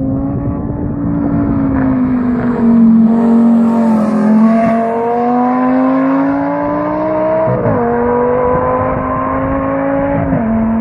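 Audi R8's V10 engine through a QuickSilver sports exhaust, accelerating hard with its note climbing steadily, then two quick upshifts where the pitch drops sharply, the first about three-quarters of the way through and the second near the end.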